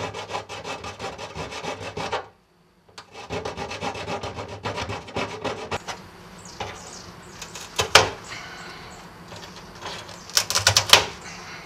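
A jigsaw blade held in pliers sawing through a cured fiberglass patch at a car's wheel arch, in quick short strokes. The strokes stop briefly a couple of seconds in, then come back and thin out, with a few louder strokes near the end.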